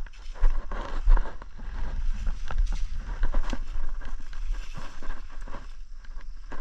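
Wind buffeting the microphone in gusts, with irregular footsteps and rustling through grass and brush.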